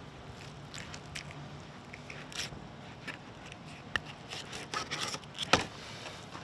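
A dull knife cutting and scraping through a mutton snapper while filleting it: irregular short scrapes and crunches, busier in the second half, with one sharp loud click about five and a half seconds in.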